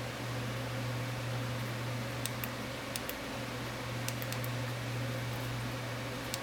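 Steady low machine hum with a hiss, as from a fan or appliance running in a small room, with a few faint small clicks scattered through it.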